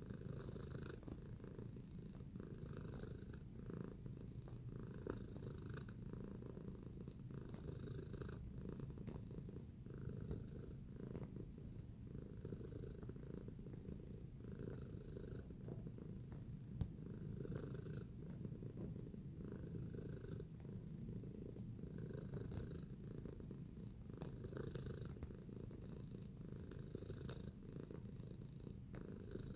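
Tabby cat purring steadily and close up while kneading a fleece bed, with faint scratchy rustles of its paws and claws on the fabric every second or so.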